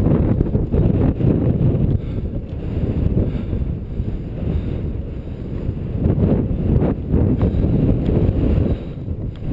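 Wind buffeting the microphone of a camera on a moving mountain bike, with low tyre rumble over bare sandstone and a few rattles of the bike around the middle.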